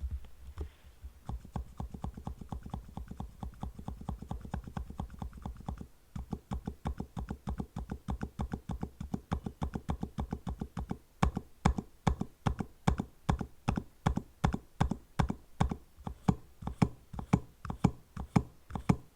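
TTC Frozen Silent V2 mechanical keyboard switches being pressed over and over, a quick run of damped clacks, several a second. About six seconds in the low thud under each press drops away, and from about eleven seconds the presses are louder and sharper, as the pressing angle changes.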